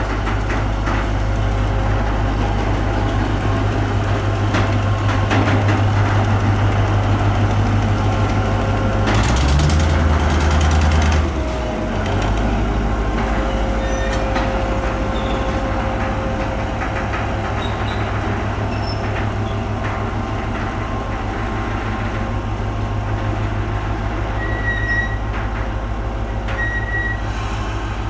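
Diesel shunting locomotive running with a steady low drone. About nine seconds in, a hiss of air lasts about two seconds while the engine note shifts, then the steady running goes on.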